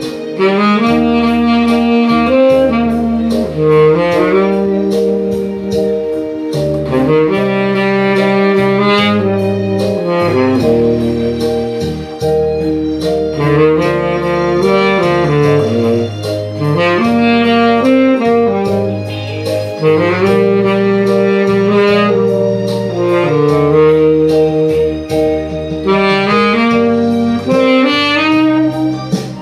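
Tenor saxophone playing a slow ballad melody in phrases over a backing track of sustained keyboard chords and bass.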